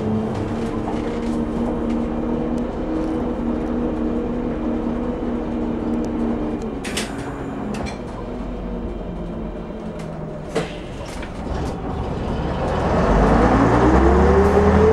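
Leyland O.680 six-cylinder diesel engine of a Leyland Leopard bus, heard from inside the saloon: it runs steadily, drops back and quietens about seven seconds in with a couple of short sharp noises, then its note rises and grows louder over the last few seconds as it revs up.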